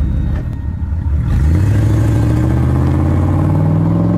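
Car engine sound effect: a low rumble, then from about a second and a half in the engine note rises steadily as it revs up.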